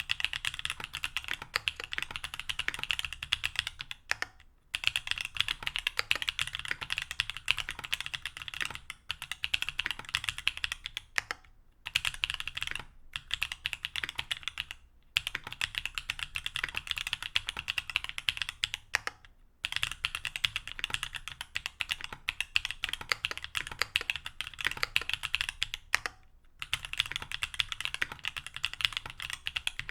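Mechanical keyboard with stock TTC Holy Panda tactile switches, aluminium plate and GMK keycaps, typed on quickly: fast runs of key clicks broken by several brief pauses.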